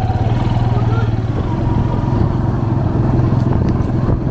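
A vehicle engine running steadily close by, with a constant low drone and a rapid pulsing.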